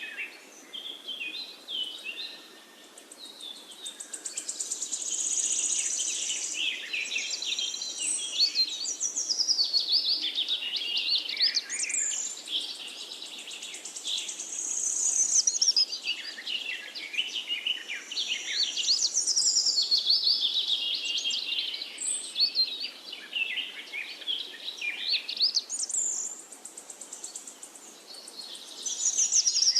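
Birds singing: quick chirps and warbling trills that swell and ease off in waves every ten seconds or so.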